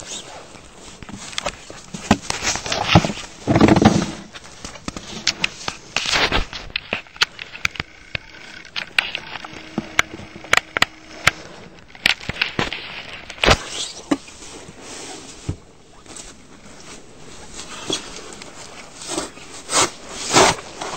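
Snow shovel working on snow-covered front steps: irregular scrapes of the blade through the snow and sharp knocks and clicks as it strikes the steps.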